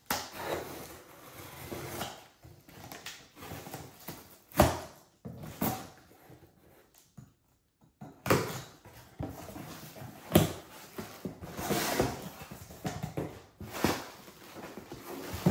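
A knife slitting packing tape on a cardboard box, then the cardboard flaps being pulled open and packing material rustling as hands dig into the box, with a few sharp knocks along the way.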